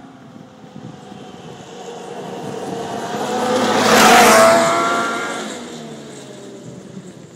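Yamaha snowmobile approaching at speed, passing close by just after four seconds in and fading away, its engine pitch dropping as it goes past.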